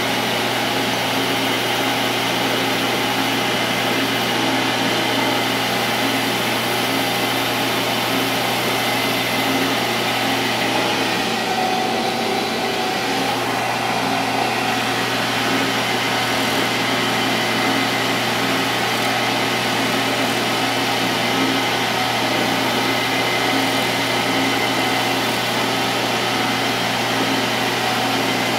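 Small metal lathe running steadily, a steel tube part spinning in its four-jaw chuck, giving a steady hum with several fixed tones. An abrasive pad is rubbed against the spinning part to polish it.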